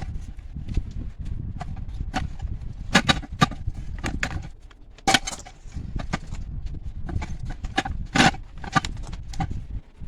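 Irregular knocks and clicks, a few a second and uneven in strength, over a low rumble, with the loudest knocks about three, five and eight seconds in.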